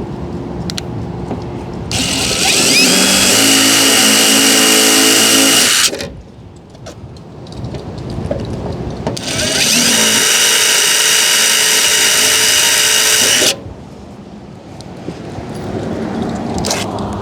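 Power drill running twice, about four seconds each time, with a high whine, drilling mounting holes into the front of an RV; a steady low hum carries on underneath.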